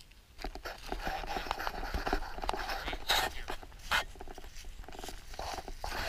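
Handling noise of a small camera carried low over dry fallen leaves: rustling and scuffing with footsteps and a few sharp knocks, starting about half a second in.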